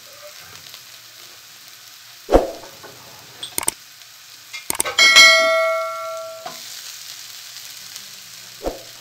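Vegetables sizzling softly in a frying pan as they are stirred, with a dull thump a couple of seconds in. Just past the middle comes a loud metallic clang that rings for about a second and a half, as cooked rice is tipped into the pan.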